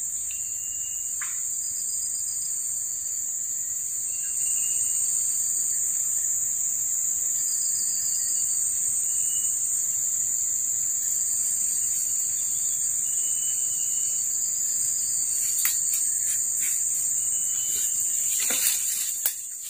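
Steady high-pitched drone of forest insects, with short rising chirps now and then and a few sharp snaps near the end.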